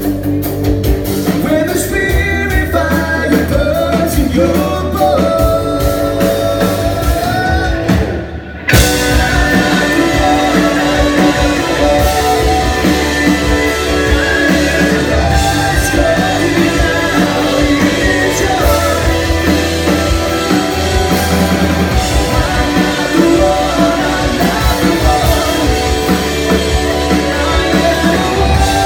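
Live rock band playing: electric guitars and drum kit with a singer, heard loud from the crowd. The music drops away briefly about eight seconds in, then the full band crashes back in.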